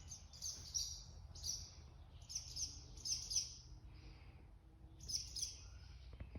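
Small birds chirping in quick high-pitched bursts, four or five clusters of rapid chirps with short gaps between them.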